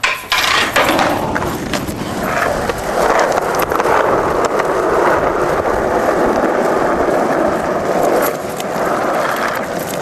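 Skateboard wheels rolling over street pavement close to the microphone, a loud steady rumbling roar. A few sharp knocks come in the first couple of seconds.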